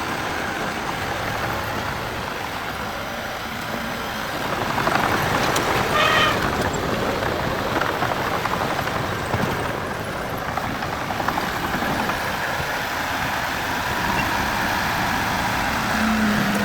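Heavy machinery engine running steadily, with a brief high-pitched squeal about six seconds in.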